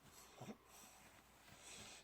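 Sleeping baby snoring: a short snore that drops in pitch about half a second in, then a longer, hissy, noisy breath.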